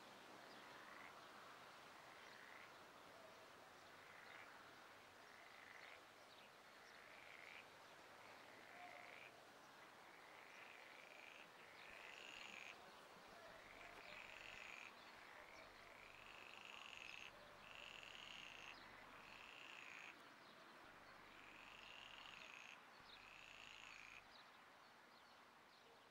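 Faint animal calls repeating about once a second, each a short high note, growing louder in the middle and thinning out near the end.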